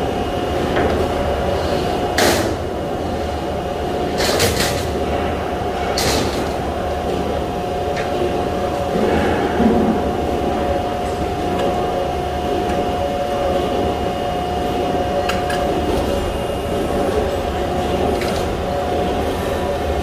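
Steady drone of shop machinery, the hum of a large hydraulic press brake among it, broken by several sharp metallic clanks and clicks as sheet metal is handled at the machine.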